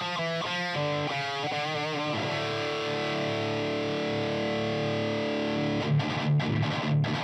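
Electric guitar played through a Laney amp and recorded with a Reslosound ribbon microphone blended with a 609 dynamic mic. A quick run of single notes gives way about two seconds in to a chord left ringing, then a few short choppy chord hits near the end.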